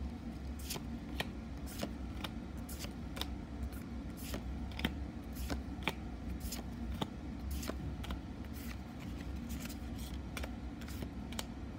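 Pokémon trading cards being flipped through one at a time, each card slid from the front of the hand-held stack to the back with a short crisp snap, about two a second. A steady low machine hum runs underneath.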